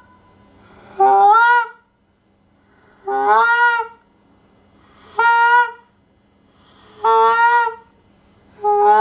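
Goose call blown in a series of moans: five drawn-out, reedy notes about two seconds apart, each under a second long and sliding slightly up in pitch, the last starting near the end. They are made with a steady flow of light air and the finger almost blocking the call's end for back pressure.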